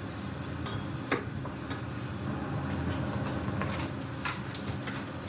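Diced onion and garlic sizzling gently in melted butter in a stainless steel stockpot, with a few short pops and taps of a wooden spoon, over a steady low hum.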